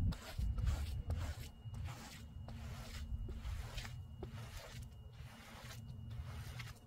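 Long-handled bristle scrub brush swishing back and forth across a wet rug, about one stroke every two-thirds of a second, over a low rumble.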